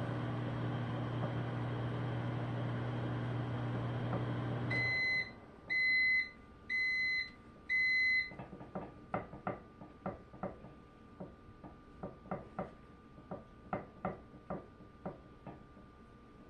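Microwave oven running with a steady hum on a 30-second cycle at 50% power, which stops about five seconds in. Four beeps follow, about a second apart, signalling that the cycle is done. Then come scattered light clicks and taps.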